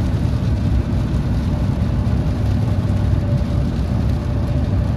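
Steady low rumble of a car in motion, road and engine noise heard from inside.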